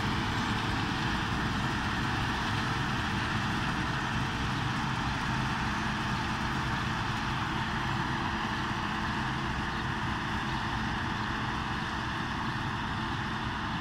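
CLAAS combine harvester running steadily while it harvests, a constant engine and threshing drone with a steady hum that slowly grows fainter as the machine moves away.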